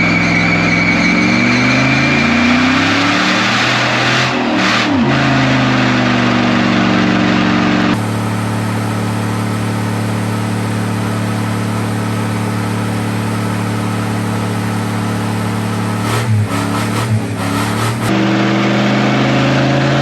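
2500HD pickup's 6.0 Vortec V8 revving hard through a burnout. The engine speed rises and falls for several seconds, is then held high and steady for about ten seconds with a couple of brief dips, and varies again near the end.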